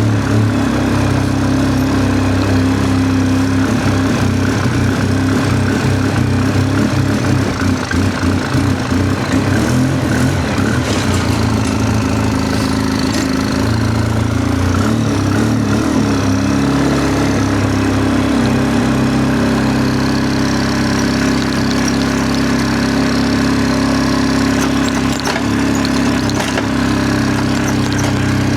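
Polaris Sportsman 600 ATV engine running steadily at idle, its note wavering for a few seconds in the middle.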